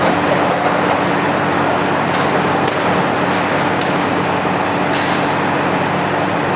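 Automatic sheet-metal punching machine running with a steady mechanical hum and noise, broken by a handful of sharp, irregularly spaced metallic clicks.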